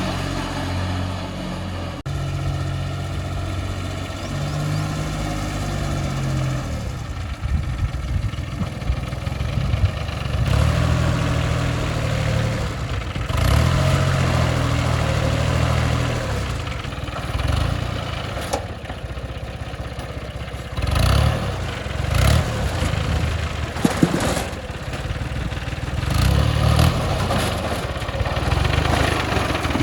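An engine running, its pitch and loudness rising and falling every few seconds as it is revved.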